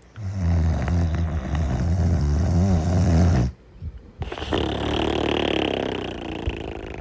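Snoring in a two-part breath: a low, buzzing snore for about three and a half seconds, a short pause, then a longer, breathy, hissing breath that fades near the end.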